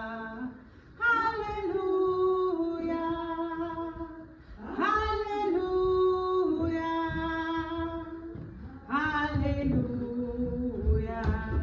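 A woman's voice singing a wordless interlude in a Danish hymn, in three phrases of long held notes, each beginning with a quick rise in pitch.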